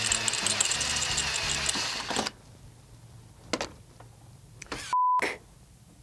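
Power drill drilling into a metal water-cooling radiator for about two seconds, then stopping abruptly as the bit slips through and punctures a radiator tube. A couple of faint clicks follow, then a short one-tone censor bleep about five seconds in.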